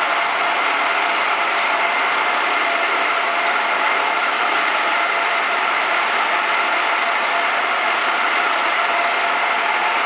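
Circular loom for woven plastic bags running at speed: a steady machine din with a few faint held tones in it.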